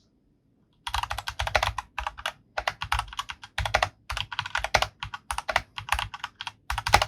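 Typing on a RogueWare GK200 mechanical keyboard with brown switches and hollow plastic keycaps: quick runs of keystroke clacks in bursts with short pauses between them, starting about a second in.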